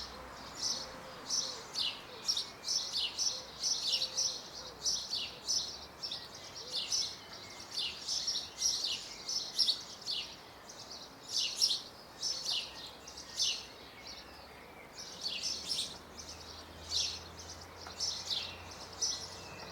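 Small birds twittering in a spring chorus: many short, high chirps, several a second, with a brief lull about two-thirds of the way through.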